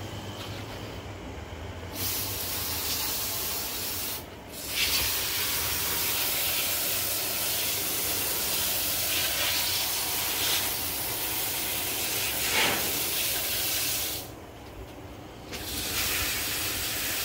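Water spraying from a garden hose's dial spray nozzle onto plants and soil, a steady hiss starting about two seconds in. It stops briefly around four seconds in and again for over a second near the end before starting up again.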